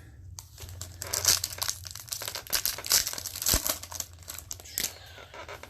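A Bowman Chrome trading-card pack wrapper being torn open and crinkled, a dense crackling rustle that lasts about four and a half seconds.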